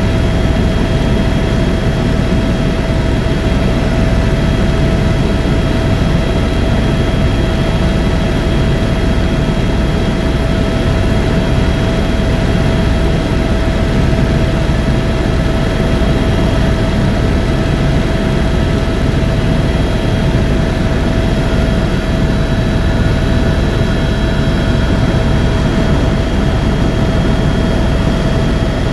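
Helicopter in flight heard from inside the cabin: a steady drone of rotor and turbine engine with a constant high whine over it.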